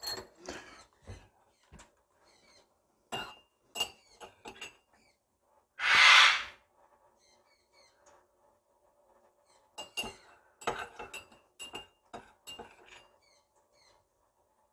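Metal spoon clinking and scraping against a ceramic mug while stirring parrot hand-feeding formula mixed with water, in clusters of light clinks. About six seconds in there is one louder, harsh burst lasting under a second.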